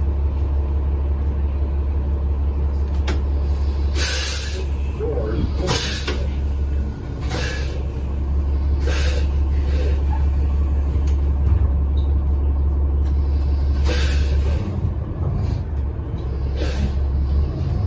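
Inside a moving city transit bus: the engine drones steadily and low, with several short hisses of air from the bus's air brakes.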